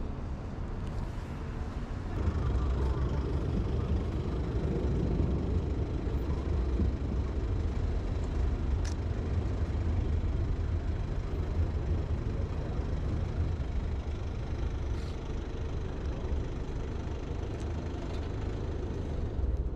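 Street traffic: a steady low rumble of vehicle engines that grows louder about two seconds in, with a sharp click about nine seconds in.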